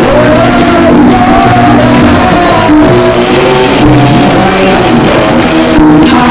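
Loud music with a voice singing and shouting over the playing.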